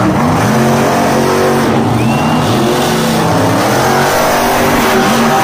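Monster truck engines revving hard and loud, their pitch rising and falling over and over with the throttle, more than one engine at times.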